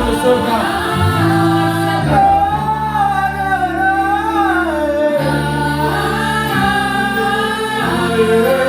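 Gospel worship singing: voices holding long, sliding notes over sustained low accompaniment chords that change every second or two.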